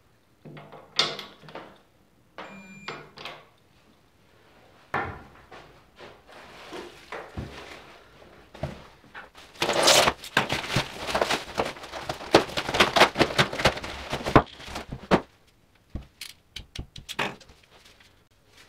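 Plastic wrapping crinkling and tearing as a new handlebar is unwrapped. This is a dense, crackling rustle lasting about five seconds from roughly ten seconds in. Before it come scattered clicks and knocks of tools and parts being handled, and a few more clicks near the end.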